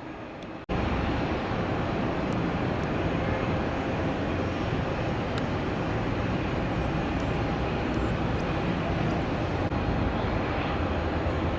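Steady roar of engine noise, starting abruptly a little under a second in, with a few faint clicks over it.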